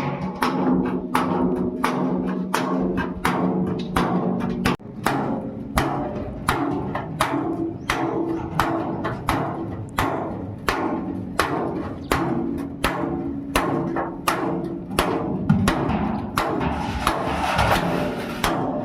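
Hammer blows on sheet steel from old oil drums, struck about twice a second, each blow leaving the metal ringing.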